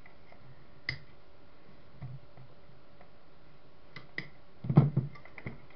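Scattered light clicks as a CCTV camera body and its cables are handled, then a quick cluster of louder knocks near the end.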